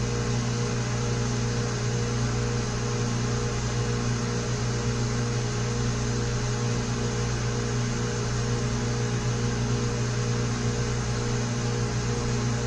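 Steady hum of shop machinery: a constant low drone with a few steady tones over a faint even hiss, not changing at all.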